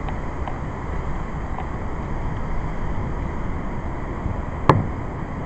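Steady low rumble with one sharp knock near the end, from something loose.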